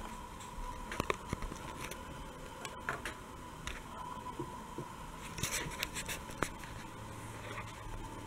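Camera handling noise: scattered light clicks and scratches, busiest a little past the middle, over a steady faint hum.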